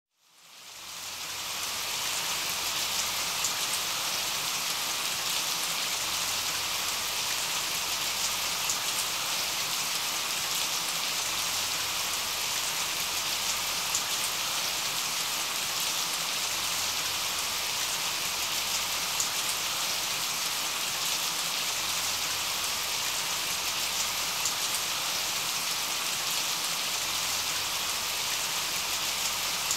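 Steady rain falling, an even hiss with scattered louder drops; it fades in over the first second or two.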